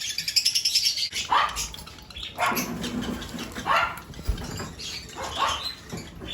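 Pet parrots in an aviary calling. A fast high chirping in the first second gives way to loud, harsh calls, each rising sharply in pitch, repeated about every second or so.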